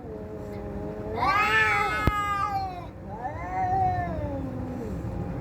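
Domestic cats caterwauling in a fight: long, drawn-out yowls that rise and fall in pitch, a low moaning one at first, then a louder rising wail about a second in and another around three seconds in. A single sharp click near the middle.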